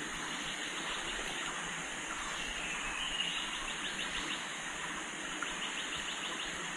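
Outdoor ambience: a steady hiss with several runs of rapid, high chirping.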